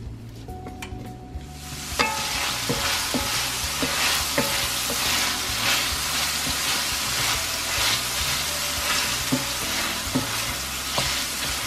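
Chopped onion and bell peppers frying in olive oil in a ceramic-coated cast iron braiser, stirred with a wooden spoon. The sizzle starts abruptly about two seconds in and stays steady, with occasional knocks of the spoon against the pan.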